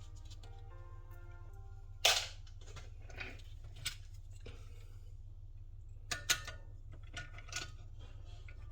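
A few sharp clacks and knocks of tools and parts being handled while the cylinder head is stripped down, the loudest about two seconds in and a close pair around six seconds. Faint background music and a low hum run underneath.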